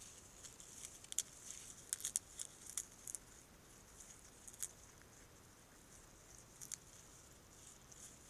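North American porcupine nibbling apple leaves: faint, irregular crisp clicks and crunches, bunched in the first few seconds and a few more later, over a steady high hiss.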